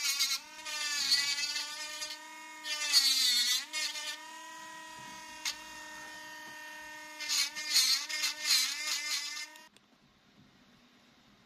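Pen-style mini rotary engraving tool running with a steady whine. Its pitch sags each time the bit bites into the wooden Opinel knife handle, with several bursts of hissing grinding as it cuts. It stops suddenly near the end.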